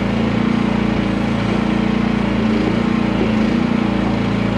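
Small petrol engine of a QH13R micro mini excavator running steadily at a constant speed.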